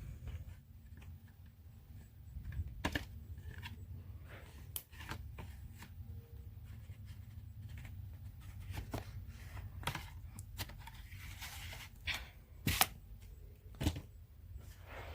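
Room tone with a steady low hum and a scattered series of sharp clicks and rustles, the loudest near the end.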